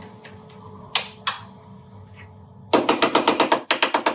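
Steady low mechanical hum with two sharp clicks about a second in, then a fast run of about a dozen sharp, clattering mechanical knocks, roughly nine a second, near the end.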